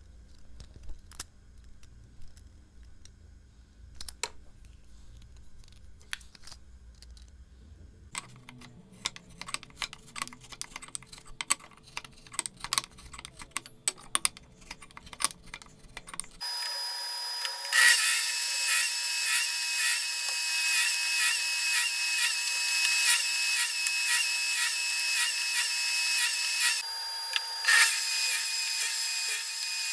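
Small clicks and taps of wooden pieces being handled on a workbench, getting busier about eight seconds in. About sixteen seconds in, a louder steady power-tool whine starts, a table saw running, with repeated short rasps.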